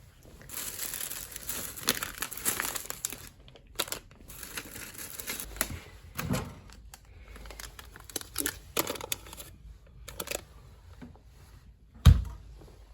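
Paper or plastic packaging being crinkled and rustled in irregular bursts, with a single heavy thump near the end.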